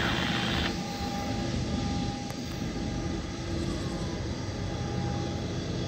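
Steady low rumble of a freight train moving away into the distance, with a faint steady hum. A brighter hiss drops away under a second in.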